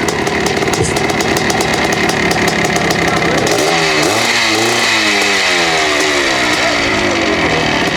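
Motorcycle engines running at idle, with one revved about three and a half seconds in, its pitch climbing and then sinking back over the next few seconds.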